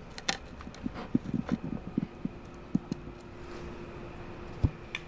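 Plastic cup and jar being handled: scattered light taps and clicks, with one dull thud about four and a half seconds in. A faint steady hum comes in about halfway through.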